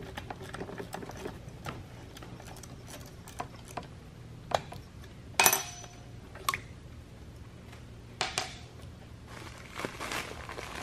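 A socket ratchet clicking in short runs and metal tools clinking against a chainsaw's cylinder as its decompression valve is turned, with one sharper ringing metal clink about halfway through.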